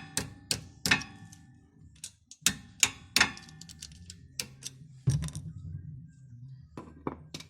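Sharp metal-on-metal taps, about a dozen at an uneven pace, some ringing briefly, as a small flat screwdriver knocks the rear brake pad retaining pin of a Vectra B caliper to drive it out. A low steady hum runs underneath.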